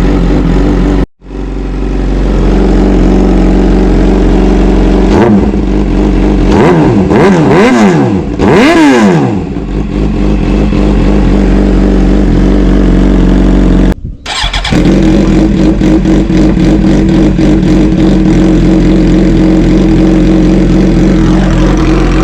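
2009 Suzuki GSX-R 750's inline-four running cold through an aftermarket slip-on exhaust end can. It idles, the throttle is blipped several times in quick succession in the middle, sending the revs up and back down, and then it settles back to a fast, pulsing idle. The sound cuts out abruptly for a moment twice.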